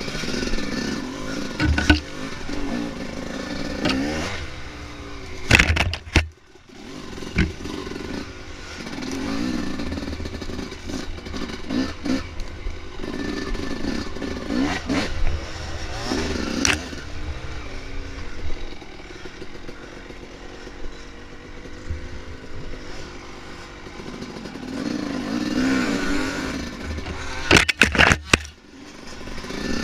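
Dirt bike engine running on a trail ride, its pitch rising and falling as the throttle opens and closes. Several sharp clattering knocks cut in, with a cluster of them near the end.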